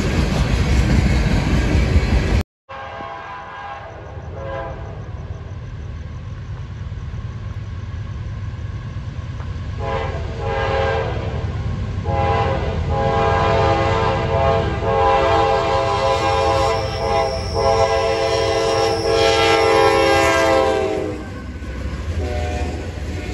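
Freight cars rolling past with a loud rumble and wheel clatter, cut off about two seconds in; then an approaching diesel freight locomotive sounds its multi-tone air horn in the grade-crossing pattern of two long blasts, a short and a final long blast, over a rising engine and rail rumble, and the train rolls past near the end.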